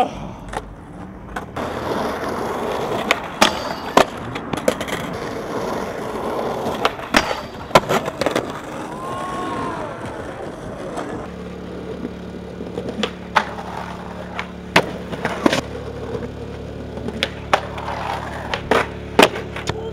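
Skateboard wheels rolling on concrete, with repeated sharp clacks and knocks of the board popping, landing and hitting the ground. About eleven seconds in the sound changes to a steady low hum under more board clacks on a concrete ledge.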